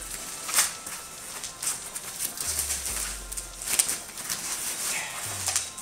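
Plastic and foam packing wrap crinkling and rustling, with irregular crackles, as wrapped parts are handled and pulled free.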